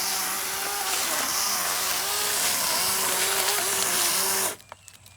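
Greenworks G-Max 40-volt battery chainsaw cutting through a dead maple branch, its motor whine dipping in pitch again and again as the chain bites into the wood. It cuts off suddenly about four and a half seconds in.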